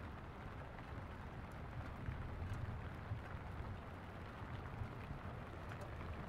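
Faint steady hiss over a low rumble, with a few scattered light crackles.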